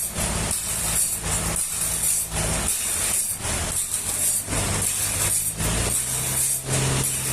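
Engine-driven sawmill machinery running: a steady low engine hum with a hissing noise that pulses about twice a second, the hum dropping to a different, stronger tone about six seconds in.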